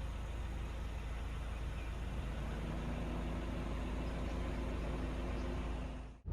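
Steady low rumble of a car running, with a faint steady hum joining about two and a half seconds in.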